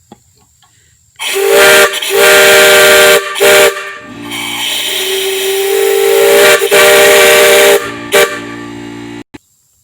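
Fabricated 3-inch three-chime step-top whistle on a 1/2-inch Crane valve, blown hard in several blasts of different lengths, sounding a chord with a hiss of rushing air. It starts about a second in, the longest blast lasts nearly four seconds, and it cuts off about nine seconds in.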